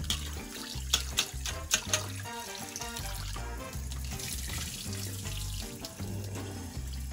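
Kitchen tap running into a stainless steel bowl as hands swish and rub raw oxtail pieces in the water to wash them. There are a few sharp clicks between one and two seconds in, over background music with a steady bass line.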